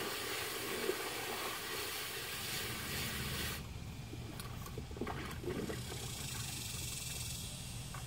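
Garden hose spray nozzle hissing as it sprays water into a plastic wading pool, cutting off abruptly about three and a half seconds in. A fainter hiss and a few light clicks follow.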